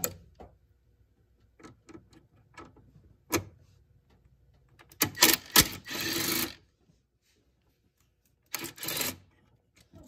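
Ratchet wrench with a 10 mm socket backing out the bolt that locks the transmission dipstick tube: a few separate clicks, then two quick runs of rapid ratchet clicking about five and eight and a half seconds in.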